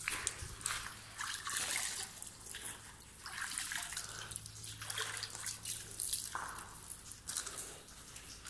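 Hands scooping and splashing water in a carved stone basin, with irregular splashes and water spilling and dripping back down.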